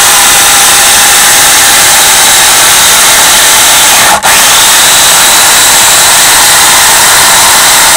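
Harbor Freight Portland electric chainsaw running loud and steady while its chain cuts down through a log, with a brief break in the sound about four seconds in.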